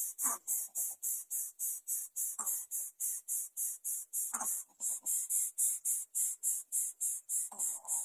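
A high-pitched insect chorus pulsing rapidly, about four to five beats a second, with four short, lower sounds standing out over it.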